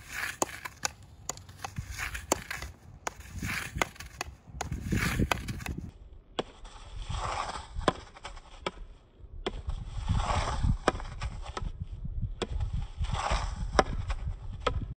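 A field hockey stick tapping and dragging a ball back and forth on artificial turf: quick, irregular clicks several times a second as the stick meets the ball, with scuffing of shoes and stick on the turf.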